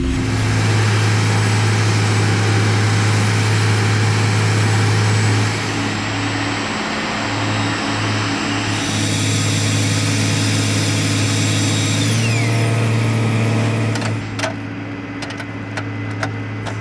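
Deicing trucks working on a KC-135 tanker: a steady engine hum under a loud hiss of deicing fluid being sprayed. Near the end the noise drops back and a few sharp clicks and knocks come through.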